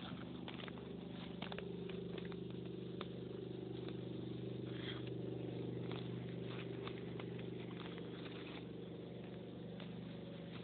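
A steady low engine hum, like a vehicle idling, with scattered light rustles and scrapes.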